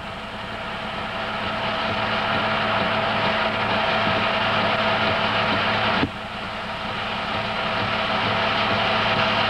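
Film projector running: a steady motor and fan hum with hiss. A sharp click comes about six seconds in, after which the sound drops and slowly builds back up.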